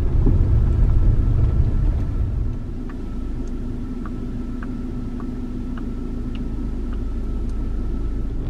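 Toyota RAV4 heard from inside the cabin, rolling along a dirt road with a deep, uneven rumble. About three seconds in the rumble eases into a steadier, quieter engine hum, with a few faint ticks.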